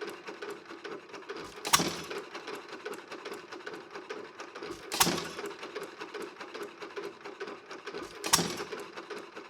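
1 1/2 hp Worthington single-cylinder gasoline hit-and-miss engine running, with one sharp firing bang about every three and a third seconds and the steady clatter of the engine coasting between fires.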